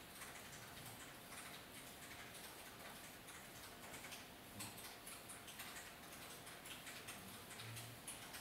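Faint light clicks and taps from hand work with a thin wooden stick and a fountain pen barrel, coming at irregular intervals over a low room hiss.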